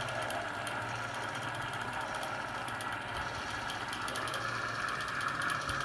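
Panasonic NV-5120 video cartridge recorder running in playback: a steady mechanical whirr of its rotating head drum, capstan and rollers, with a low hum. This is the slight rotation noise the owner is trying to quiet by smoothing the rollers.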